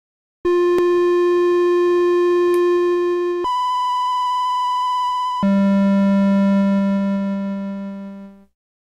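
Casio VL-1 monophonic synthesizer playing its flute waveform (waveform 3) with the smallest vibrato setting: three held notes, a middle one, a higher one, then a low one that fades out near the end. The vibrato is very fast and very subtle.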